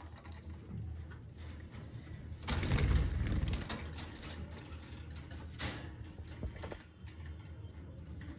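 A wire birdcage rattling and rustling as a hand reaches in through the bars, loudest about two and a half to three and a half seconds in, over a steady low hum.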